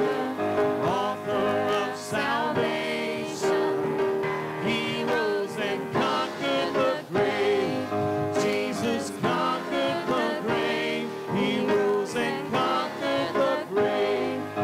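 Church service music: instruments playing with a voice singing, continuous and steady in level.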